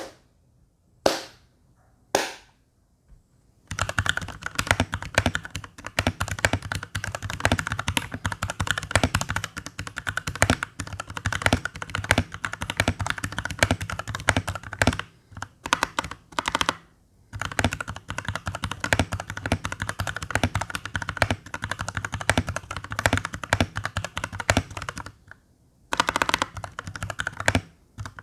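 Typing on an RK61 mechanical keyboard with lubed Outemu Purple tactile switches and PBT keycaps, the keys bottoming out on each press. Three single keystrokes come first, then fast continuous typing, a rapid stream of clacks with a few short pauses and a brief stop near the end.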